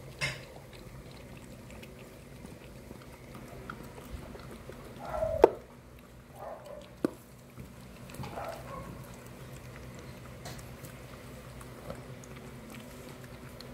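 Small dogs eating rice from stainless steel bowls: quiet lapping and chewing with a few sharp clinks of the bowl, the loudest about five and a half seconds in and another a moment later.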